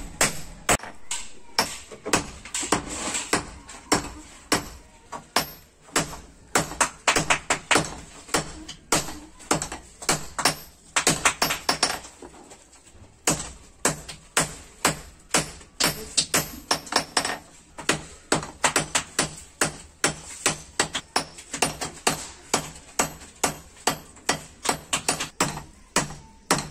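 Hammers striking red-hot steel on an anvil during hand forging: a fast, steady run of sharp metallic blows, several a second, with a brief pause about halfway through.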